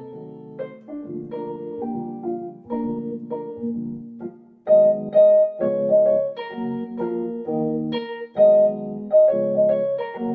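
Electronic keyboard with a piano voice playing a slow melody over chords. After a brief pause just before halfway, the melody notes come in louder and more accented.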